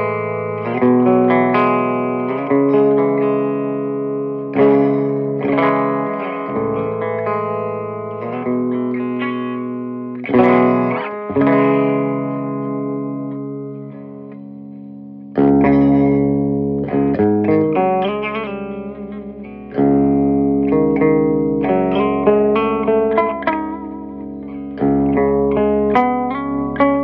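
Electric guitar played through a Peavey Bandit 112 combo amp fitted with an Eminence Swamp Thang speaker, with picked single notes and ringing chords. About fifteen seconds in, the tone suddenly gains more low end.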